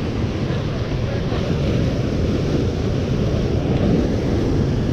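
Steady wind noise on the microphone over the continuous wash of surf.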